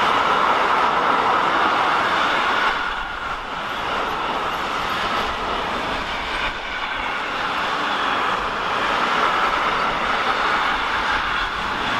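Intermodal freight train of pocket wagons carrying lorry semitrailers rolling past: a steady rush of wheels on rail, dipping briefly about three seconds in.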